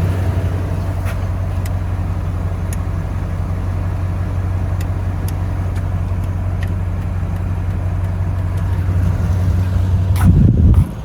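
Car engine running with a steady low rumble, with a few faint clicks and a brief louder noise near the end.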